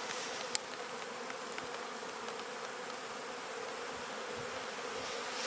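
Many honeybees buzzing around their hives in a steady, unbroken drone.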